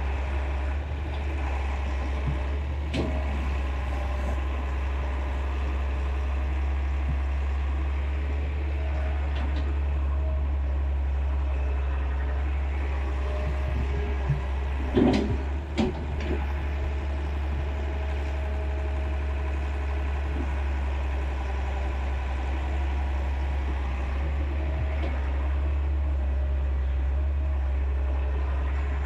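Excavator's diesel engine running steadily with a deep, even drone, with a few sharp knocks, the loudest two close together about halfway through.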